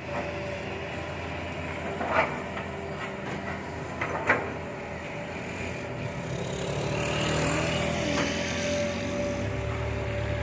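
Hitachi excavator's diesel engine running steadily, with two sharp knocks about two and four seconds in, and the low engine note growing heavier near the end.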